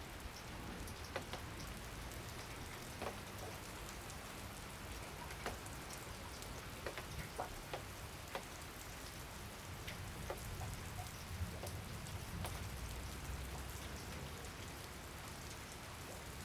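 Steady rain falling, with scattered louder drops striking a hard surface at irregular intervals.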